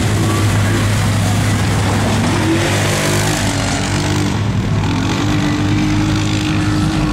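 Off-road vehicle engines running over a steady low drone, revving up about two and a half seconds in and again near five seconds, then holding a steady pitch.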